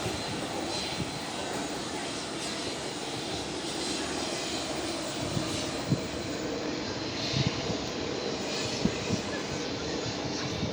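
Steady jet airliner engine noise with a faint high whine, mixed with wind buffeting the microphone, and a few brief knocks.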